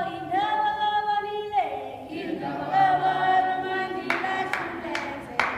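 A small group of women and a man singing a cappella in harmony, holding long notes. Rhythmic hand claps join the singing about four seconds in.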